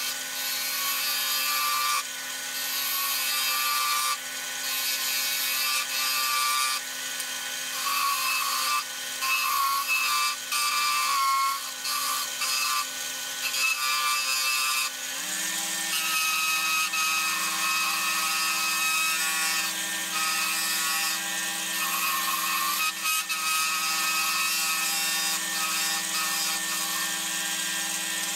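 Wood lathe running with a steady motor hum while a wide flat chisel cuts an oak spoon handle, making a rough scraping hiss that comes and goes as the tool is worked along the spinning wood. The hum shifts in pitch about halfway through.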